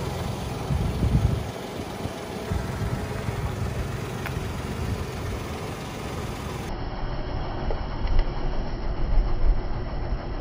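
Car engine idling while the car creeps slowly forward on gritty asphalt toward water-filled balloons. There is a brief louder burst about a second in, and uneven low bumps near the end as the tyre begins to press into a balloon.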